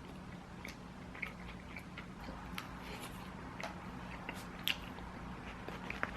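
Close-miked eating: chewing with scattered small mouth clicks and smacks, irregular and fairly quiet, over a steady low hum.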